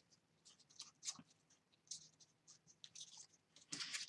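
Faint rustling and light scraping of a strip of patterned paper being handled and slid over a card, in short scattered strokes, with a slightly louder rustle near the end as the strip is lifted and bent.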